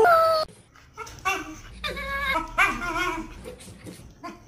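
Husky whining and yowling in a string of drawn-out calls that waver up and down in pitch. A louder high call at the start cuts off after about half a second.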